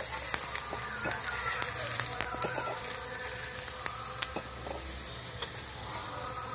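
Dried leftover rice grains sizzling in hot oil in a steel karahi as they puff up, with scattered light clicks and scrapes as a wire skimmer stirs and lifts them.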